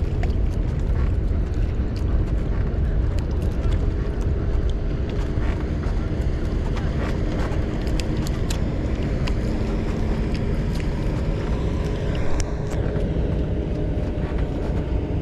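A boat engine running steadily with a low hum, under a heavy rumble of wind on the microphone, with scattered faint clicks.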